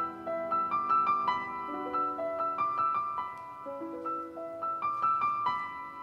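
Background piano music: a melody of single notes that ring on over held lower notes.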